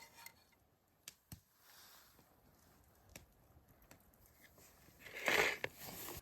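Sparse faint clicks, then one short scraping rustle about five seconds in: handling noise from camp breakfast cooking.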